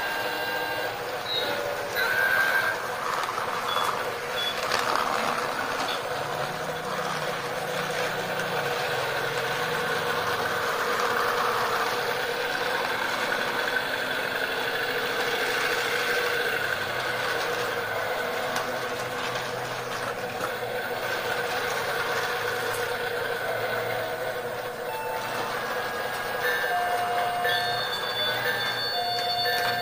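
Small electric motor of a toy train locomotive running steadily along plastic track, a continuous whine with wheel clatter. A few short high beeps sound over it now and then.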